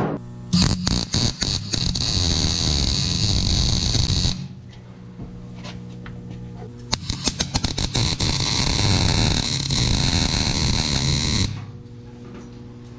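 Two spells of welding, each about four seconds long, crackling as the arc strikes and then a steady sizzle: steel cross pieces being welded into a truck bed floor frame. A low steady hum fills the gaps.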